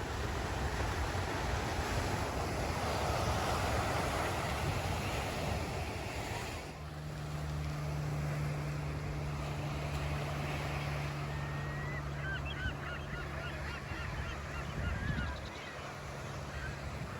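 Surf washing on the beach, then a steady low hum with a gull calling in a quick series of short calls near the middle.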